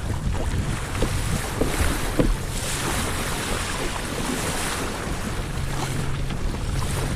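Wind buffeting the microphone over water slapping and rushing along a kayak's hull in chop, with a few small knocks and a louder wash of water about halfway through.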